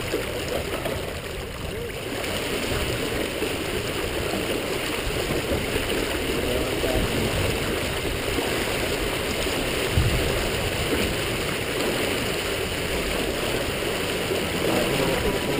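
Water rushing steadily along a sailboat's hull under spinnaker, mixed with wind rumble, and a brief low thump about ten seconds in.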